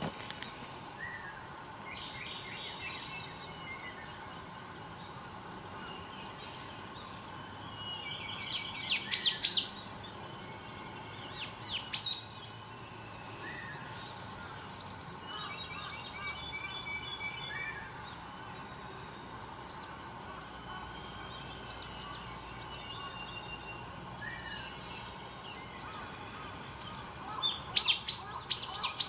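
Several wild birds calling and singing, with a mix of different call types. Loud bursts come about nine and twelve seconds in, and a quick run of loud calls starts near the end.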